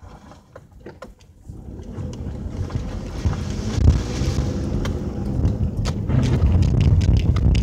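Car driving on a rough, slushy dirt road: a low rumble of tyres and wind buffeting the microphone that grows much louder about a second and a half in, with scattered clicks.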